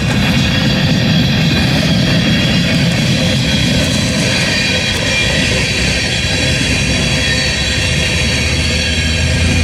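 Freight train rolling past: a steady, loud rumble of railcars on the track, with thin high ringing tones from the wheels and rails over it.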